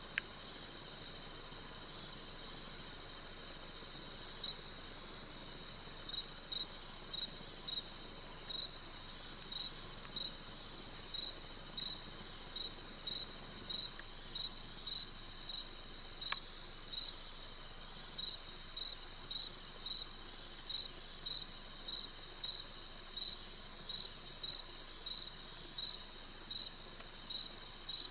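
Night insects, crickets among them, shrilling steadily, with a louder pulsed chirp repeating about every three-quarters of a second from a few seconds in. A brief fast high trill from another insect comes in late on.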